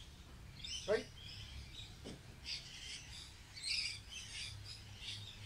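Several birds chirping and calling over and over, with a couple of lower falling calls in the first two seconds, over a faint steady low hum.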